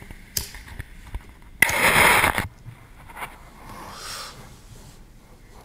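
Close handling noise of a camera being set down in beach sand: a few knocks, then a loud scraping rush lasting just under a second, followed by faint background noise.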